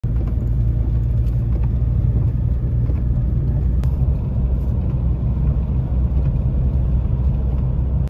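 Steady low rumble of a car's engine and tyres heard inside the cabin while driving on a snowy road.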